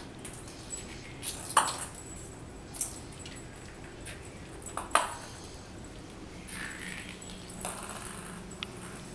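Ping pong ball batted by a cat, clicking and bouncing on a hard vinyl tile floor: a few sharp clicks, the two loudest about three seconds apart, with lighter taps between.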